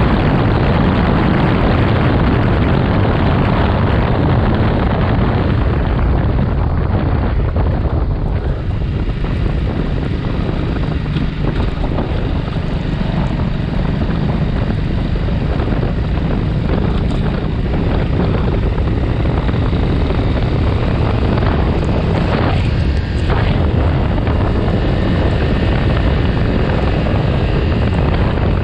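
Heavy wind noise buffeting the handlebar-mounted action camera's microphone on a Triumph Speed 400 motorcycle riding at speed, a loud, steady rumble that masks the engine and tyre noise beneath it.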